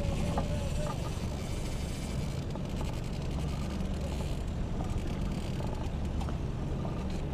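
A fishing boat's outboard motor running steadily at trolling speed, a low even hum.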